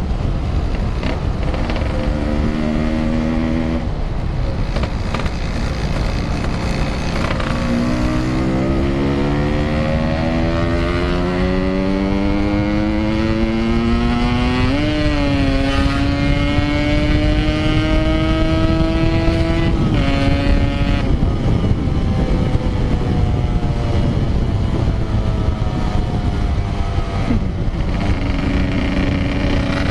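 Yamaha RX King's single-cylinder two-stroke engine pulling under throttle while riding. Its pitch climbs steadily for about twelve seconds with a brief wobble midway, then falls away sharply as the throttle closes, over steady wind and road noise.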